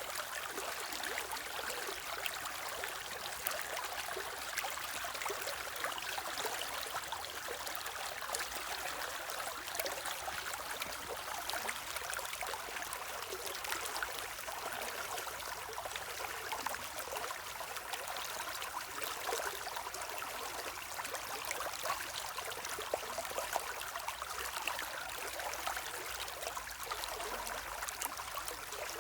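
A stream running steadily over stones, a constant rush of water with small splashes and trickles.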